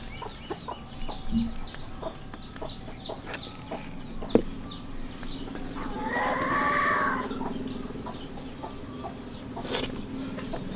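Chickens clucking, with a rooster crowing once a little past halfway. Through it come small clicks and scrapes of a metal spoon on a stainless-steel tray as cooked mung bean paste is spread.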